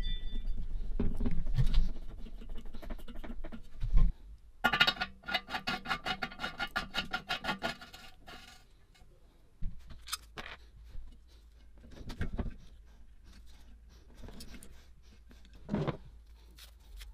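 Metal fittings of a flame-gun fuel tank being handled and screwed together. A fast, ringing metallic scraping rattle lasts several seconds as the threaded filler cap is turned, followed by a few separate knocks and taps.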